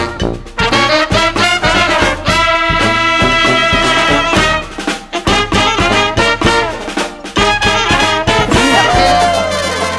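New Orleans-style brass band playing a funky tune: trombones, trumpets and saxophone in chords over a steady drum beat, with one horn note bending down near the end.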